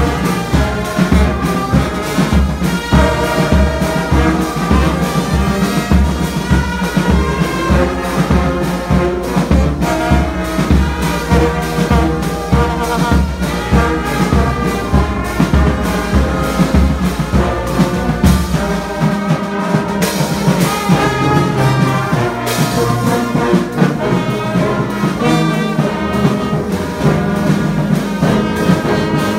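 Brass band playing up close, trombones loudest with trumpets behind, over a steady low beat about twice a second that drops out about two-thirds of the way through.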